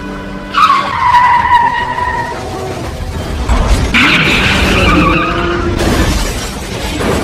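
Film sound effects of car tyres squealing in skids: a sudden loud squeal about half a second in, another, noisier skid about four seconds in, then a harsher rush of noise near the end as a car crashes.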